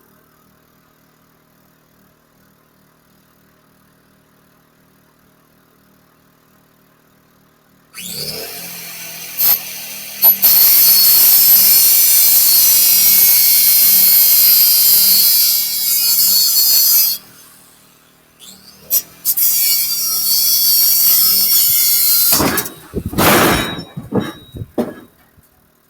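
Angle grinder cutting through the metal bands on a bundle of railroad ties: a loud, high-pitched grinding that starts about eight seconds in, breaks off briefly around seventeen seconds, runs again, and ends in a few short bursts. Before it starts there is only a faint low hum.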